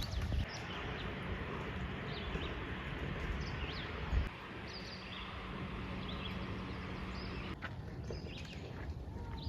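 Wild birds chirping, with short scattered calls and quick pitch glides, over a steady outdoor background hiss and low rumble.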